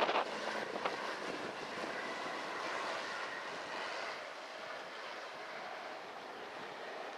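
Fairchild Metro III's Garrett TPE331 turboprop engines running, a steady whine over a broad rush that slowly fades away. The sound is mixed with wind noise on the microphone.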